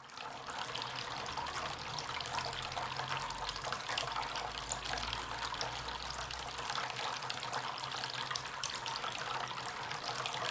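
Water trickling and splashing steadily in a small homemade decorative water fountain.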